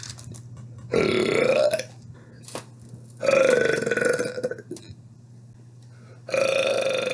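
Three long, loud burps from a person, each lasting about a second or more, the last one starting near the end.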